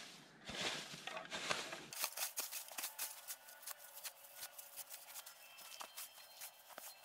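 A snow shovel digging into wet snow: the blade scrapes and crunches in noisy strokes, then about two seconds in the sound turns into a quieter run of sharp clicks and ticks.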